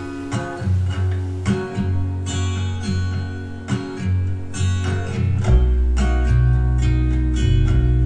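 Acoustic guitar music played through Harman Kardon SoundSticks 4 speakers, with strummed and plucked guitar; a deep bass line comes in about five and a half seconds in, making it louder.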